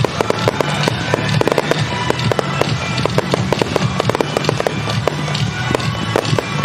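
Fireworks display in full barrage, with many shells bursting in quick succession and crackling several times a second. Music plays throughout as part of the musical fireworks show.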